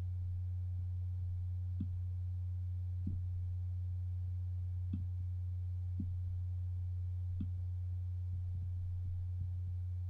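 A steady low hum, with a handful of faint computer clicks scattered through it as a line is drawn on screen.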